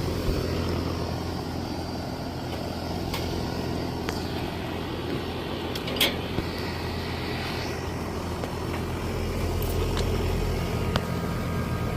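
Lennox R-410A air-conditioning condenser running: a steady hum from the compressor and condenser fan, with a few sharp clicks about three, six and eleven seconds in.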